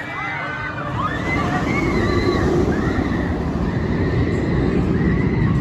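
Stuntfall giant inverted boomerang roller coaster train running along its track: a rushing roar that grows louder about a second in, with riders' high cries over it.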